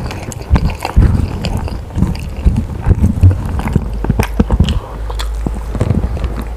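A person chewing and biting food close to the microphone, in irregular wet smacks and clicks.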